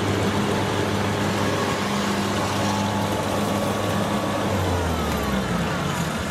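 Kubota DC-93 rice combine harvester's 3.8-litre diesel engine running steadily under load while cutting rice. Its note drops about four and a half seconds in as the machine eases into a turn.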